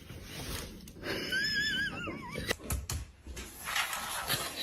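An animal's single call, about a second long, with a wobbling pitch that falls toward the end.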